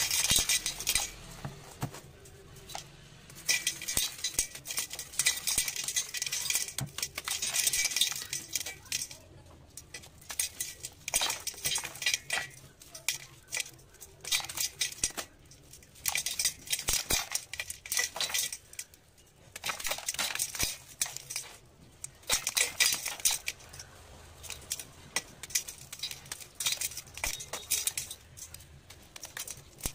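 Dry sand blocks crushed and crumbled by hand, crunchy crackling with grains and chunks pattering into a stainless steel bowl. It comes in irregular bursts with short pauses between handfuls.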